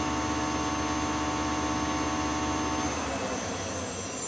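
Clausing Metosa CNC lathe spindle running steadily at 500 RPM in low gear, a hum of several steady tones; about three seconds in the drive cuts out and the spindle winds down, fading gradually.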